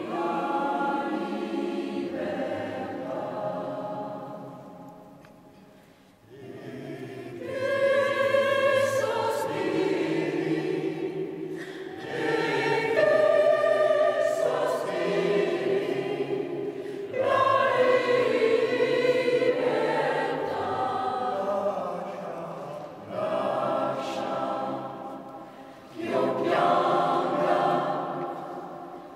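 A mixed choir of men's and women's voices singing a cappella in a church, in several phrases. The singing dies away about six seconds in, then starts again.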